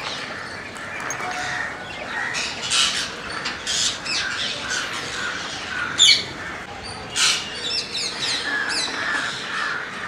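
A large flock of rose-ringed parakeets feeding together, keeping up a constant chatter of harsh screeches and squawks. Sharper, louder calls stand out about six and seven seconds in.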